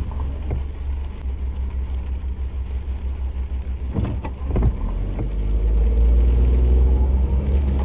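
Low, steady rumble of a motor vehicle running, getting louder about six seconds in, with a few sharp clicks about four seconds in.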